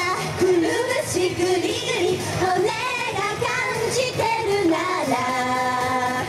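Japanese female idol group singing an upbeat anime theme song live into microphones over a pop backing track. Near the end the voices hold one long note.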